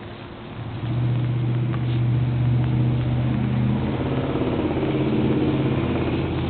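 An engine running, coming in about a second in and then holding a steady hum, its pitch shifting slightly partway through.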